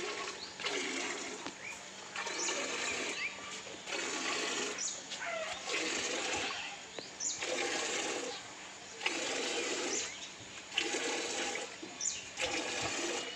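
Milk squirting by hand from a water buffalo's teats into a steel bucket. It comes as a steady rhythm of spraying, splashing bursts, each under a second long, a little slower than once a second.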